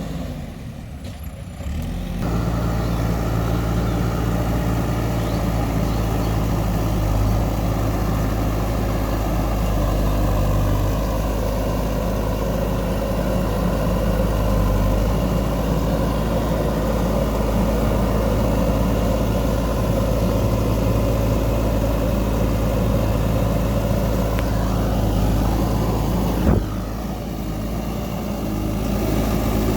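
JCB 3DX backhoe loader's diesel engine running steadily. It is quieter for the first two seconds, then drops abruptly again for about two seconds near the end.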